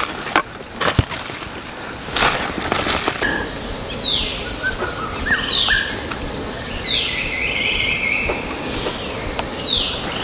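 Footsteps crunching through dry forest leaf litter for the first few seconds. Then a steady high-pitched insect drone sets in, with a bird calling a falling note about every second and a half and a few shorter chirps.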